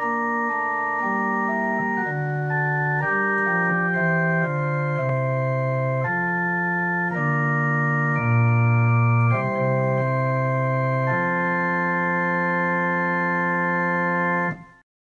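Organ playing a slow sequence of sustained chords, changing about once a second, then a long held final chord that cuts off suddenly near the end.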